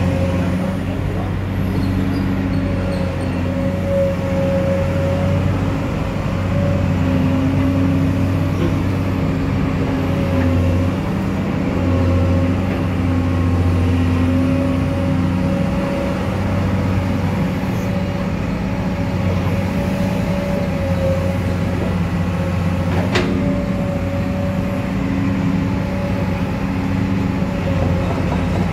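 Komatsu PC200 hydraulic excavator's diesel engine running steadily while the boom, arm and upper structure are worked. A single sharp click comes about three-quarters of the way through.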